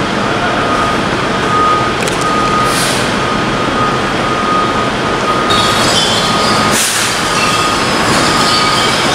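Garbage trucks running and dumping their loads, the engine and hydraulic noise steady, with a backup alarm beeping at an even pace throughout. Short hissing bursts come about three seconds in and again about seven seconds in.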